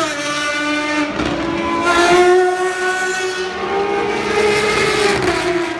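Ferrari race car engines running at high revs as the cars pass on the circuit, a high-pitched engine note that rises as they accelerate and shifts in pitch.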